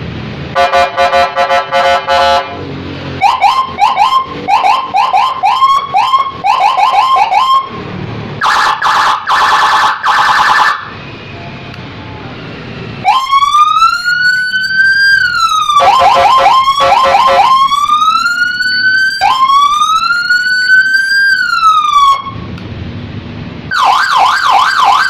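Custom-built electronic police-escort siren for a Yamaha XMAX scooter, stepping through its tone patterns with short pauses between them: a rapid pulsing tone, a string of short rising whoops, a fast high-low warble, slow wails that rise and fall, and a fast yelp near the end.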